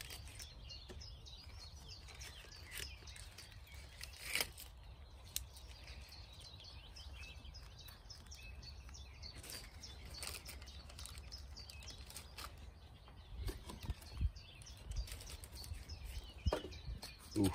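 Quiet outdoor background with scattered soft clicks and rustles of birch-bark and pine-resin tinder being handled and laid in a fire pit, and a few low thumps in the second half.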